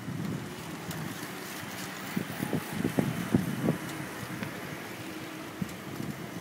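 Street noise heard from a moving bicycle: a steady rush of wind and car traffic, with a few short louder knocks between about two and four seconds in.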